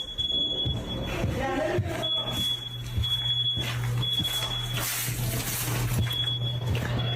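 A high-pitched electronic alarm-like tone sounding on and off at irregular intervals over a steady low hum, with brief voices about a second in.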